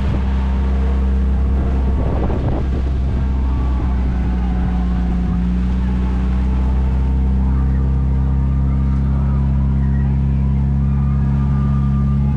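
Engine of a slow-running Main Street Vehicles cab, a steady low drone that shifts slightly in pitch about halfway through.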